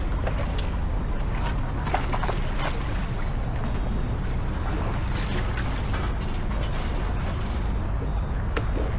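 Outdoor city ambience: a steady low rumble throughout, with faint voices and scattered small clicks.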